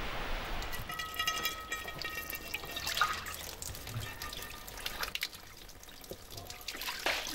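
Tap water running and trickling into a metal frying pan while it is rinsed and rubbed by hand, with splashes and small knocks of the pan. A brief ringing tone sounds about a second in.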